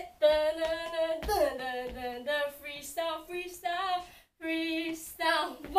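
A woman singing the song's melody in wordless syllables, a single voice in short phrases of held notes that bend in pitch, with a brief pause about four seconds in.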